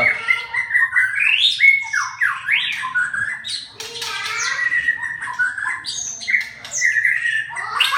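Pet bird squawking and chirping: a busy string of short whistle-like calls that glide up and down, with harsher squawks among them.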